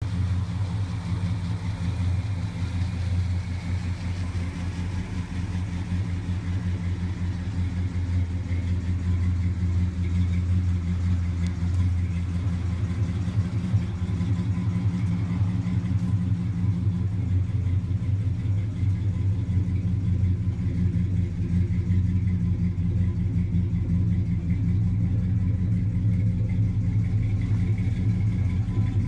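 1966 Dodge Charger's big-block V8 running steadily with a deep, even rumble.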